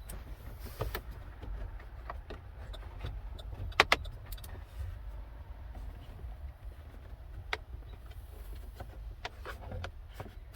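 Plastic interior trim being handled and clicked into place: scattered light clicks and taps, with a sharp double click about four seconds in, over a low steady rumble.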